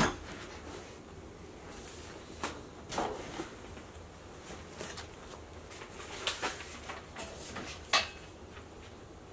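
Scattered knocks and clicks from a black metal desk leg frame being handled, a sharp one at the start, a few more spread through, and the loudest a second or so before the end.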